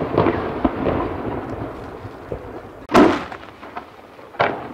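Aerial firework shells bursting with rolling echoes: crackling and a fading rumble at first, then one loud boom about three seconds in and a smaller boom near the end.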